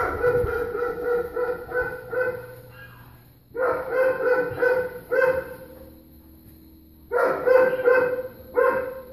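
Dogs barking behind a closed apartment door in three bouts of rapid, repeated barks, with short pauses between the bouts.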